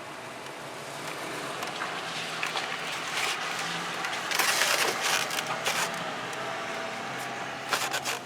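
Crinkling and rustling of a fast-food bag being handled, loudest about halfway through, with a few clicks, over the steady noise of the car.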